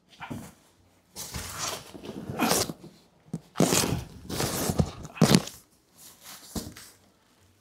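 A large cardboard box scraping and rustling, with the plastic and bubble wrap inside crinkling, as the boxed filing cabinet is tipped over onto its side. A dull thump comes about five seconds in.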